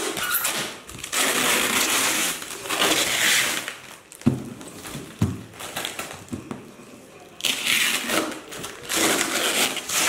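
Clear plastic shrink-wrap crinkling and tearing as it is pulled off a cardboard box, in two long stretches with a quieter gap in the middle. In the gap come two short soft knocks.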